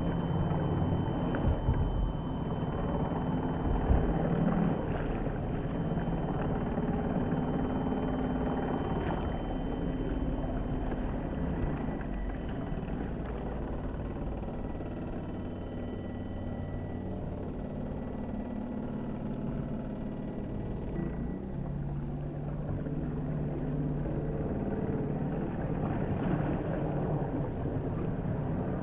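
Radio-controlled model hydrofoil boat running on open water, its water-cooled brushless motor giving a thin, steady whine over the rush of its wake.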